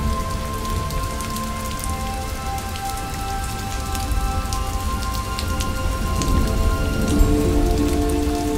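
Steady rain sound with soft, long-held ambient music notes over it; a new, lower chord comes in about seven seconds in.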